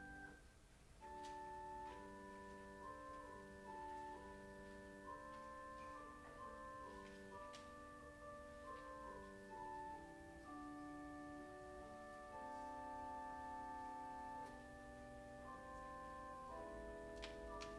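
Quiet, slow instrumental keyboard music: held chords under a melody that moves in steps. There is a brief break just under a second in, then a new phrase begins.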